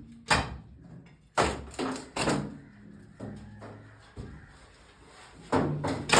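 Sharp bangs and knocks of roof demolition work, coming at irregular intervals with a quieter lull in the middle.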